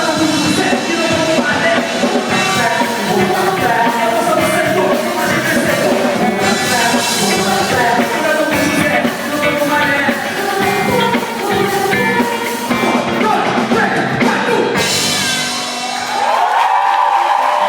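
Live gospel worship band playing with singing, a praise song in a rock style. Near the end the instruments drop away and a single voice carries on alone.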